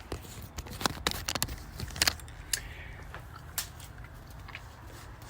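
A series of sharp, light clicks and taps, scattered irregularly and thickest in the first half, over a low steady hum.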